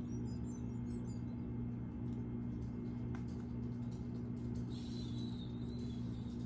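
Steady low droning hum of a meditation background track, with a few bird chirps in the first second and a thin high whistling tone about five seconds in.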